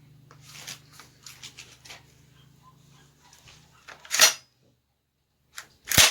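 Parts of a new Stoeger shotgun being worked and fitted together: light rattling clicks, then two loud sharp clicks about four and six seconds in, over a faint low hum.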